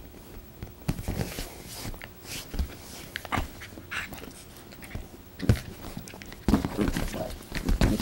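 A small dog playing with a hand on a leather sofa: irregular scuffling, rubbing and little dog noises come in short bursts, busiest and loudest in the last second and a half.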